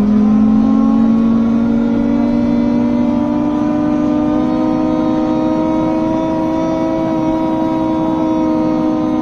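Interior of a BMC Procity city bus (Cummins ISB6.7 diesel, ZF Ecolife automatic) under way, dominated by the humming drone of its fans. The drone's pitch drops sharply at the very start, then climbs slowly as the bus gathers speed.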